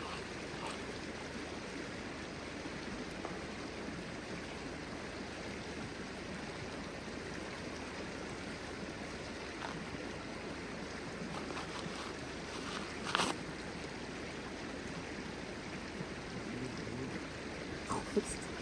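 Steady rush of a flowing stream, with a single sharp click about two-thirds of the way through.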